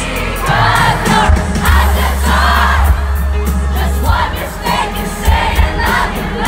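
Live pop concert: a band plays with a heavy, steady bass line while a large crowd sings along loudly with the lead vocal. It is heard from among the audience, so the crowd's voices are close and full.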